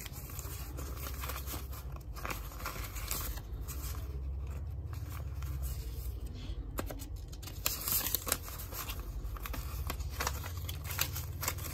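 Paper banknotes rustling and crinkling as they are handled and counted by hand, over a steady low hum.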